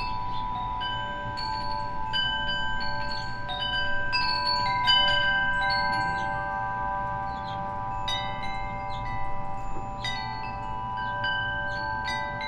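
Wind chime ringing as the wind moves it. Its chimes are struck at irregular moments in small clusters, each note ringing on for several seconds and overlapping the others.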